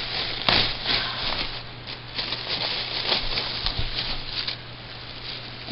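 Plastic bags rustling and crinkling as they are handled, in irregular crackly handfuls, loudest about half a second in.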